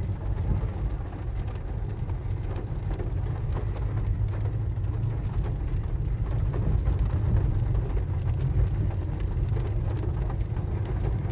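Loaded grain truck driving in heavy rain: a steady low engine and road rumble, with rain falling on the vehicle.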